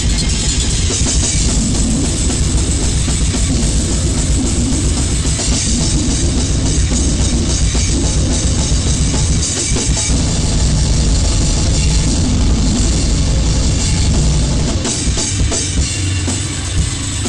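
Goregrind/noisecore recording: a loud, dense wall of distorted noise with drums underneath, unbroken throughout and thinning slightly near the end.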